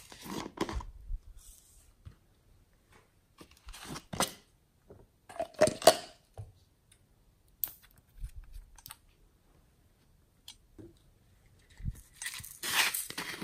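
Small plastic containers being handled and opened by hand: scattered clicks, taps and rustling, with a longer, louder rustling stretch near the end.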